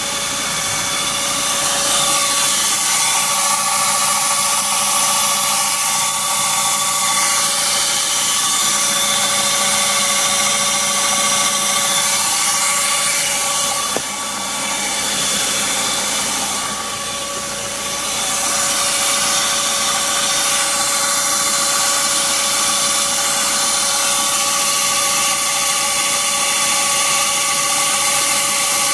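BMW Z3 1.9 engine running with a steady high-pitched squeal. It comes on at start-up, cold or warm, and is not cured by new air-conditioning and fan belt tensioners or new brake pads and rotors; its cause is unknown.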